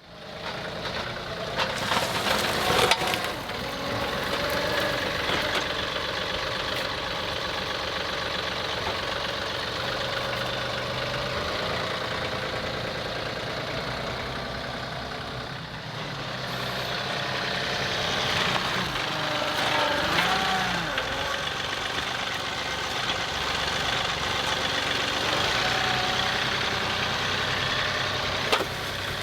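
John Deere 2038R compact tractor's diesel engine running steadily, its pitch rising and falling for a few seconds around the middle, with a few sharp knocks near the start and near the end.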